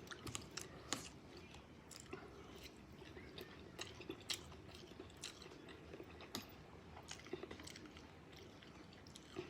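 Close-up chewing of Samyang instant noodles, with irregular small wet smacks and clicks of the mouth.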